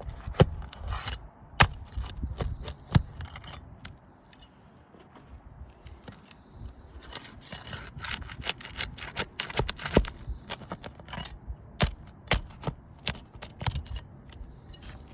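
Nails being pried out from under asphalt roof shingles: a metal tool scraping and rubbing under the shingle tabs, with irregular sharp clicks and knocks and a quieter stretch a few seconds in.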